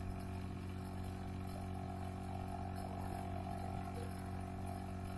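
Steady low electrical hum with a faint even hiss: the background noise of the recording, with no other sound.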